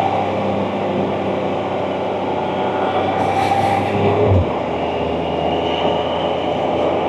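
Can-Am Spyder three-wheeled motorcycle's engine running steadily under way, with road and wind noise. The engine note drops abruptly about four seconds in.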